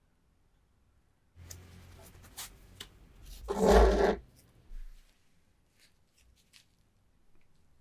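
Rusty bayonet in its scabbard handled and scraped against a tabletop: a rustling scrape that starts about a second and a half in and swells into a loud scrape with a dull thump about four seconds in, then a few light clicks.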